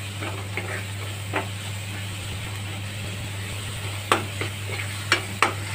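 Chopped onion, capsicum and spices frying with a steady, soft sizzle in a metal kadhai. A metal spoon scrapes and clicks against the pan a few times, mostly in the second half, under a steady low hum.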